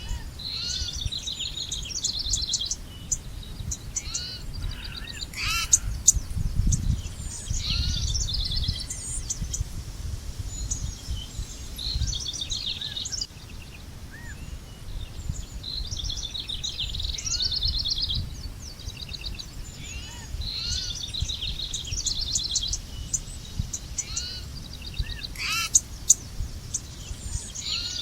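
Several songbirds singing and calling, with repeated rapid trills and short rising and falling chirps from more than one bird, over a steady low rumble.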